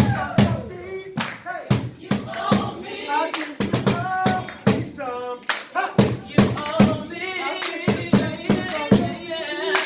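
A voice singing over a steady, rhythmic beat of short percussive hits.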